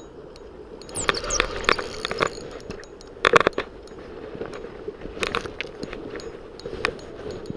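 Handling noise on a spinning rod and Shimano Exage reel, with scraping, rubbing and irregular knocks against the rod-mounted camera. A dense cluster of knocks comes about a second in, a loud clatter just past three seconds, and a few smaller knocks later.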